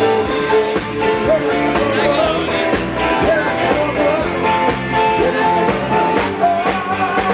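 Live rock band playing loud through stage speakers, with a singing voice over guitars.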